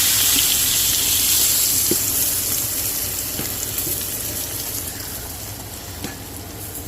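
Braising liquid of wine, vermouth and beef broth poured into a hot pan of seared veal chops, hissing and sizzling loudly as it hits the metal; the hiss gradually dies down as the pan cools. A few faint clicks.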